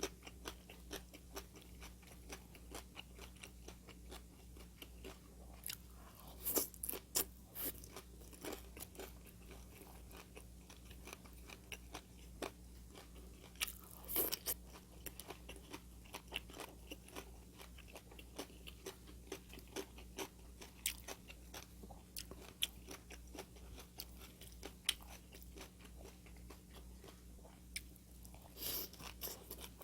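Close-miked chewing and biting of crunchy food, with a run of soft clicks and wet crackles and a few louder crunches now and then, over a faint steady low hum.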